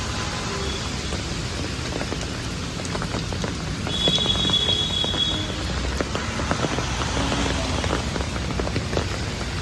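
Steady rain falling, with many small sharp drop hits over a constant hiss. A brief high-pitched tone sounds about four seconds in and stops a second and a half later.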